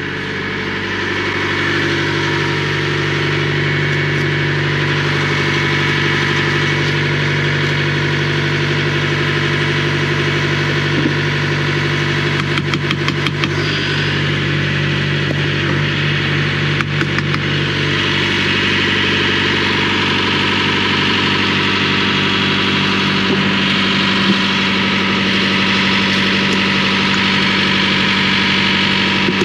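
Semi-truck diesel engine idling steadily, with two short runs of light metallic clicks around the middle.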